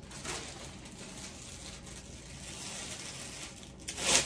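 Faint rustling and movement, then a plastic cellophane treat bag crinkling loudly about four seconds in as it is handled.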